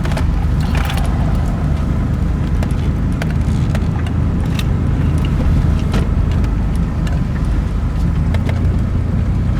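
Inside the cab of a Chevy S10 pickup: steady engine and road rumble, with scattered light clicks and rattles. The engine is holding a high idle of about 1500 rpm by itself and pushing the truck along with no throttle, a fault that keeps the driver on the brake.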